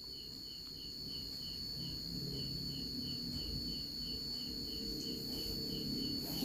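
Faint insect chirping: an even, repeating chirp about four times a second over a steady high-pitched tone, with a faint low rumble beneath.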